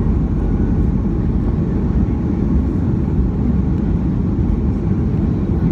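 Steady low rumble inside the cabin of a Southwest Airlines Boeing 737 during its landing rollout on the runway, with spoilers raised as it slows down.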